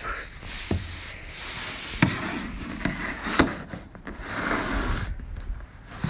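Handling noise: the phone's microphone rubbing and scraping against a surface, with a few sharp knocks.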